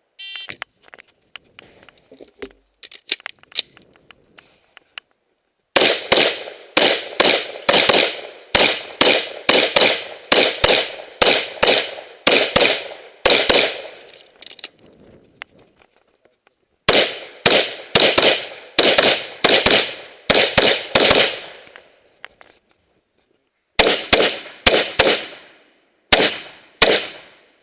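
An NGA X7 AR-15 rifle fired semi-automatically in three fast strings of shots, about two to three shots a second, with pauses of two to three seconds between strings. It opens with a short electronic shot-timer beep and a few faint clicks before the first shot, some five seconds in.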